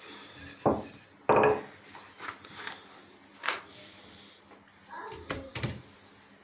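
Wooden rolling pin and hands working dough on a stone counter: a series of irregular knocks, thuds and taps, the loudest two within the first second and a half, then lighter ones.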